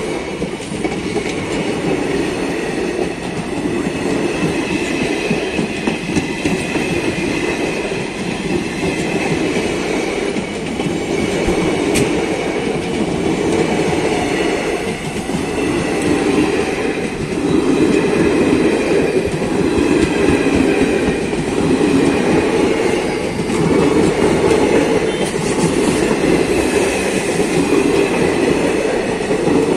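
Doon Express passenger coaches rolling past close by as the train departs, their wheels running steadily on the rails; the sound gets a little louder about halfway through.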